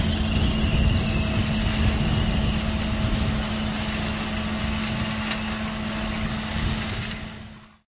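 Pik Rite 240 prototype tomato harvester running steadily, a dense machine din with a constant droning hum; the sound fades out near the end.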